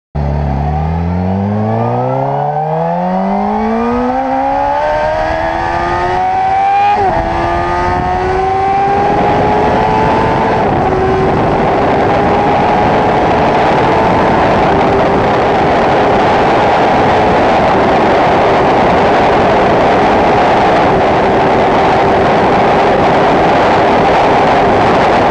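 Suzuki GSX-R1000 K8 sportbike's inline-four engine at full throttle, its pitch climbing steeply through the gears, with a short dip at a gear change about seven seconds in. From about ten seconds on it holds a near-steady high pitch at top speed, around 299 km/h, under growing wind rush.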